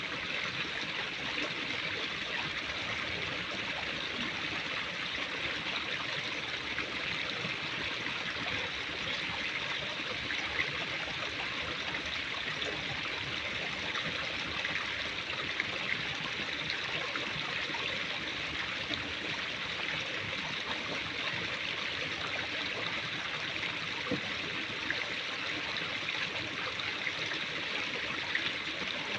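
Steady rushing noise like a running stream, with a few brief faint ticks.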